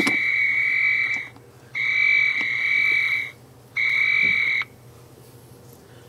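Tamper alarm of an EmpireTech DB2X-WP video doorbell door station, set off by taking the station off its wall mount. It is a steady high-pitched electronic tone in three long pulses with short gaps, the last pulse shorter, and it stops a little under five seconds in.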